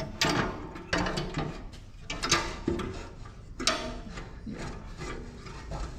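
Hand ratchet wrench clicking in short strokes with several sharp metal knocks, roughly a second apart, as bolts are run into a steel plate on the stump grinder's frame.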